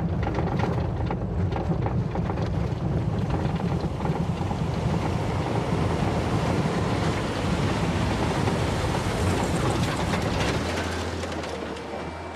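Vehicle driving on a rough dirt road, heard from inside the cabin: a steady rumble of engine and road with scattered knocks and rattles. Near the end it gives way to a quieter, steady low engine hum.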